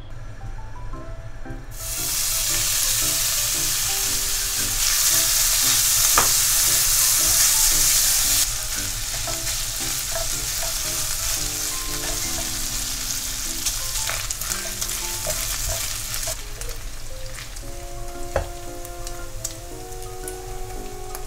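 Bacon pieces sizzling in hot oil in a wok, stirred with a silicone spatula. The sizzle starts suddenly about two seconds in as the bacon goes into the oil, is loudest for the next several seconds, then settles to a steadier, lower frying hiss with occasional clicks of the spatula.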